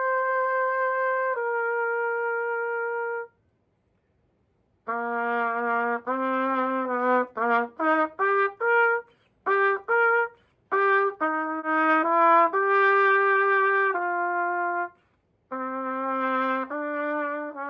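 Yamaha YTR-2330 B♭ trumpet being play-tested after repair from a drop. Two long held notes are followed by a pause of about a second and a half, then a string of shorter notes moving up and down in pitch, with another short break near the end.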